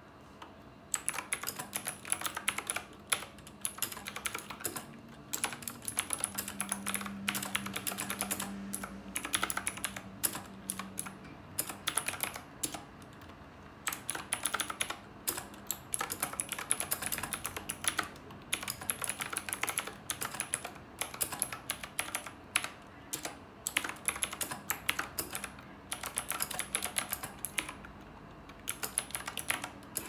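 Fast typing on a Knewkey Rymek typewriter-style mechanical keyboard with round keycaps: a dense stream of key clicks starting about a second in, with a few brief pauses.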